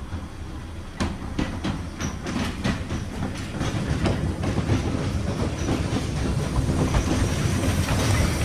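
Narrow-gauge 0-4-2 saddle-tank steam locomotive and its carriages rolling slowly in over the pointwork, wheels clicking irregularly over rail joints and crossings above a low rumble. The sound grows steadily louder as the train approaches.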